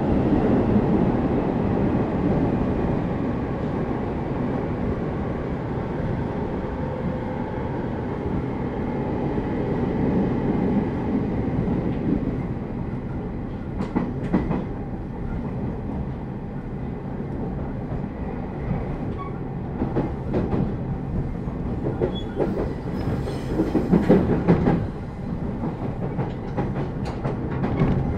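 JR East 209 series (2100 subseries) electric commuter train running, heard inside the passenger car: a steady rumble of wheels and running gear. Clicks of wheels passing over rail joints come now and then, with a louder run of them near the end.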